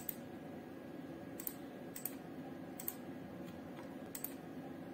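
Computer mouse clicking, about six short sharp clicks at irregular intervals over faint steady room hum.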